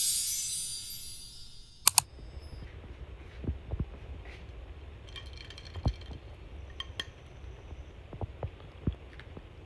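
Two sharp clicks about two seconds in, then scattered light taps and clinks of small objects being handled.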